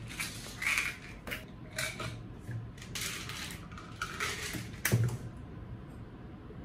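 A run of short clattering and rustling handling sounds over about five seconds, ending in a sharp knock about five seconds in.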